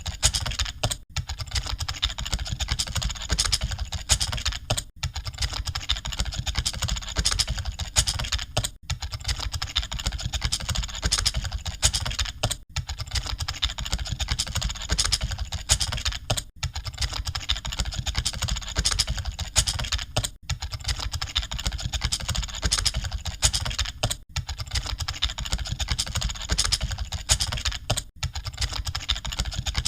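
Computer keyboard typing: rapid, dense key clicks with brief pauses about every four seconds, the sound of typing in an exam hall.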